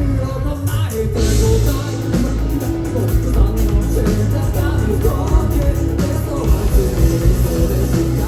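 Rock band playing live, with drums and guitar and some singing.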